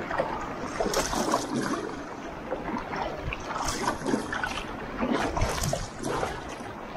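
Sea water splashing and lapping around a sit-on-top kayak's plastic hull in choppy water, in irregular splashes over a steady wash.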